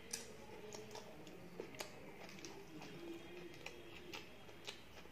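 Faint mouth sounds of two people chewing chicken burgers in soft bread buns: small wet clicks and lip smacks at irregular moments over a quiet background.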